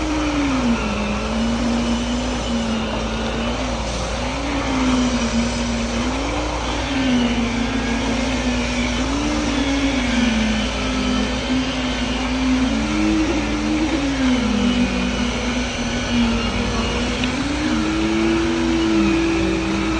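Engine running steadily, its pitch dipping and rising again every few seconds as its speed changes under load; at times a second engine runs alongside it.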